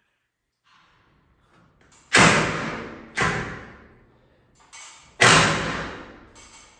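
Three loud, sharp thumps, each dying away over about a second: one about two seconds in, another a second later, and a third near the five-second mark.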